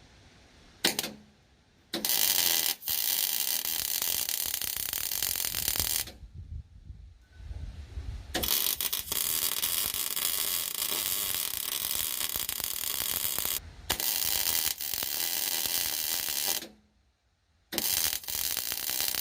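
Arc welder striking and running welds on steel: a short burst about a second in, then four runs of crackling arc, each a few seconds long, starting and stopping abruptly with brief pauses between them.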